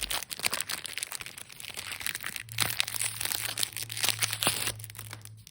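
Pokémon trading card booster pack wrapper crinkling and crackling as it is handled and pulled open by hand.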